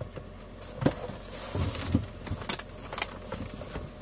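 Used sawdust-pellet horse-bedding cat litter being scooped out of a plastic litter pan: scraping and rustling of the loose litter, with a few sharp knocks of the scoop against the plastic.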